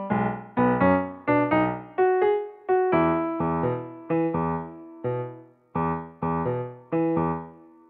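Background music: a light keyboard tune of separately struck notes, each dying away, with the last note held and fading out near the end.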